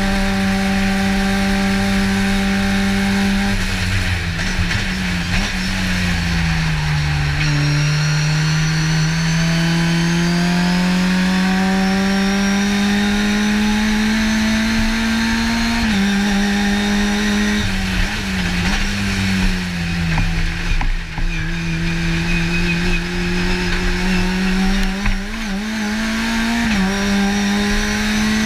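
A race car's engine is heard from inside the cockpit at full speed. It holds high revs, then about four seconds in the revs drop in steps as the driver brakes and shifts down. After that the revs climb slowly and steadily in third gear. Later it lifts off and pulls up through the revs again, over constant road and tyre noise.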